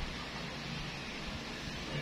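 Steady background noise, an even hiss with a low hum and no distinct event.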